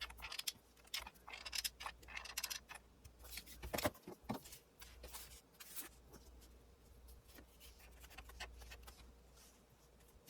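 Faint scattered clicks and taps of a hot glue gun being handled and dabbed onto ribbon and paper, thickest in the first half and loudest about four seconds in.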